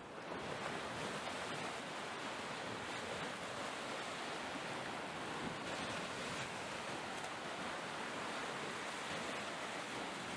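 Steady ocean-wave ambience, an even wash of surf noise that fades in over the first moment and holds.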